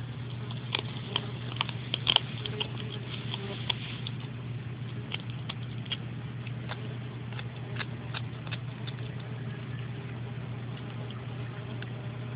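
A miniature pinscher's teeth clicking as she snaps at yellow jackets: irregular sharp snaps, bunched about two seconds in and sparser later, over a steady low hum.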